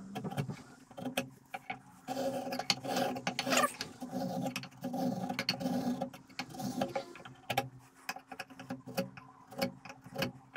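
Marking gauge scraping along the edge of a hardwood board in several short, light passes, scribing layout lines, with small clicks and knocks between strokes as it is repositioned.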